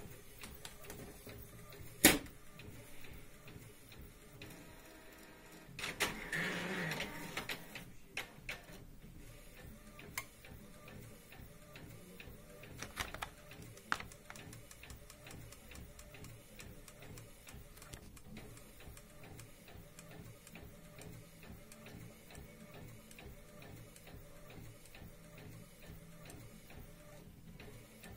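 Allwin thermal pouch laminator's motor-driven rollers running steadily with a faint rhythmic ticking as a sheet of business cards feeds through. A sharp click about two seconds in, and a louder noisy patch for a second or so around six seconds in.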